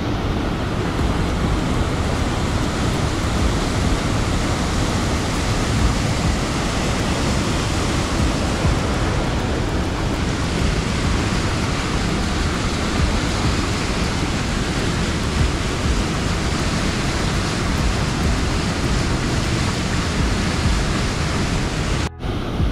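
Mountain torrent rushing through a narrow rock gorge: a loud, steady rush of white water. It cuts out for an instant near the end.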